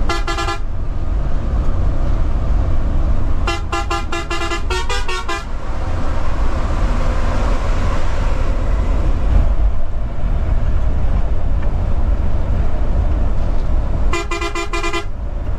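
A vehicle horn sounding in three bursts of rapid beeps: a short burst at the start, a longer run of about ten quick beeps a few seconds in, and another short burst near the end. Steady low engine and road rumble runs underneath.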